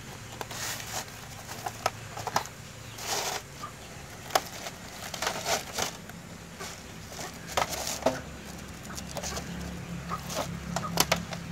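Chickens clucking now and then, over a steady low hum.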